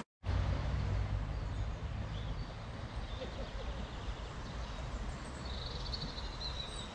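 Riverside ambience: a low wind rumble on the microphone over a steady rushing hiss, with small birds chirping faintly and a short trill near the end.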